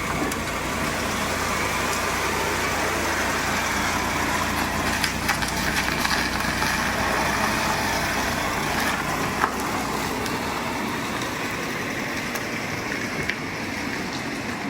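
Steady car road and engine noise, with a low rumble that eases off in the last couple of seconds and a few small clicks and knocks.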